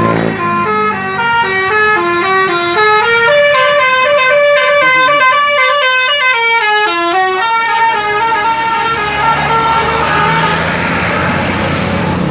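Bus telolet horn, a set of electric air horns playing a tune: a quick run of stepped notes, several sounding together, rising and falling in pitch. About ten seconds in the tune ends and the bus's engine noise takes over.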